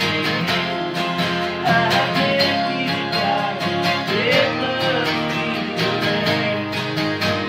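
Two acoustic guitars strummed together in a steady country rhythm, with a voice singing a few short phrases over them, around 2 and 4 seconds in.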